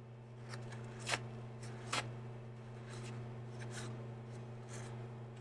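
Short scraping and rubbing strokes of hand-worked knife-sharpening gear on a steel blade, with two sharp metallic taps about a second and two seconds in, over a steady low electrical hum.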